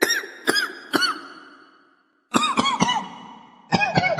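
Three quick groups of three sharp hits, each ringing briefly with a tone that bends up and back down.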